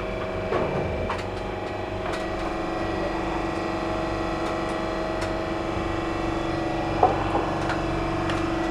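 Steady mechanical hum of kitchen machinery, with a few light taps and a sharper knock about seven seconds in.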